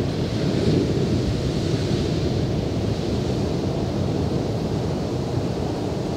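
Rough sea surf breaking and washing up the shore in a steady rush, with wind buffeting the microphone.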